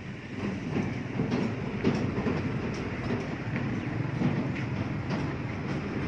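Several calves eating dry chopped straw fodder from a wooden trough: a steady, dense crunching and rustling with many small irregular clicks.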